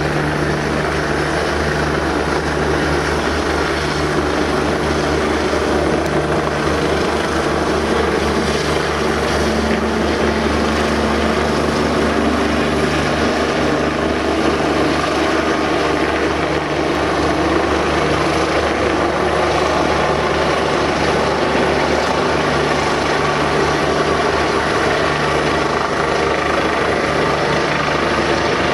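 Helicopter hovering, its rotor beating steadily and evenly.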